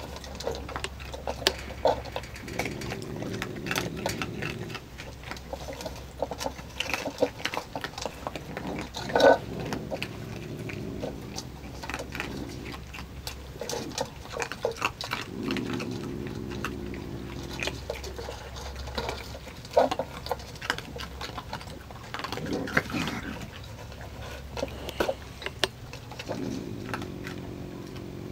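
Raccoons eating dry cat food: a steady run of crunching and small clicks from chewing kibble and paws at the bowls. This is broken up, three times, by stretches of low rumbling churring or growling from the feeding raccoons.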